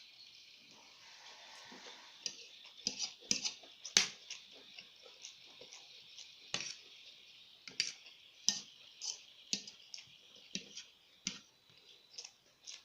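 Close-up eating sounds: a dozen or so sharp, irregular clicks and smacks of chewing and utensils, the loudest about four seconds in, over a steady high hiss.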